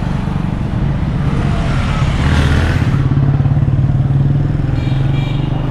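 Street traffic close by: a motor vehicle engine running with a steady low hum, and a louder rush about two seconds in.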